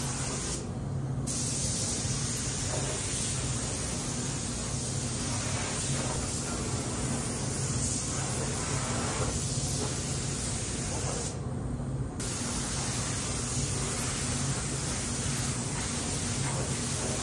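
Air-atomising paint spray gun hissing steadily as paint goes onto a truck hood. The hiss drops out briefly twice, about half a second in and again around eleven seconds in, as the trigger is let off, over a steady low hum.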